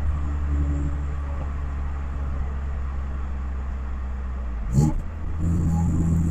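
Steady low drone of a car being driven, heard from inside the cabin: the 1991 Honda Accord's four-cylinder engine with road noise. A brief rising sweep with a sharp click comes just before five seconds in, after which the engine sound gets a little louder and steadier.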